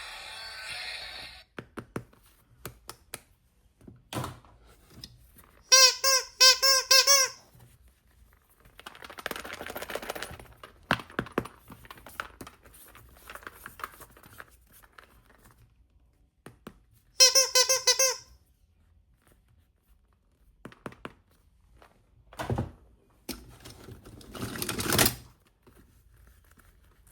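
Plastic toy pieces being handled, with scattered clicks, taps and light knocks and two spells of packaging rustle. Twice a short warbling high tone sounds, the first lasting about a second and a half, the second about a second.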